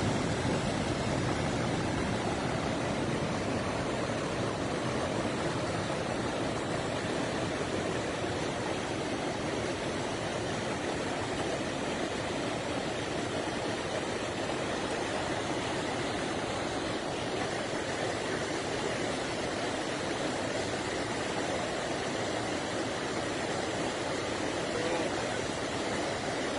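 Swollen river in flood rushing steadily, a constant, even roar of fast water.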